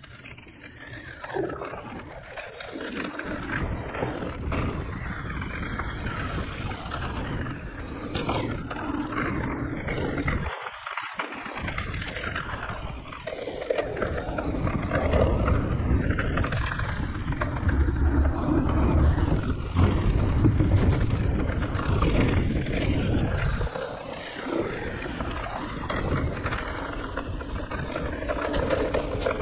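An e-mountain bike riding down a rough trail: continuous rumble and rattle of the tyres and bike over the ground, with wind buffeting the microphone. It grows louder in the middle and briefly drops out low down about eleven seconds in.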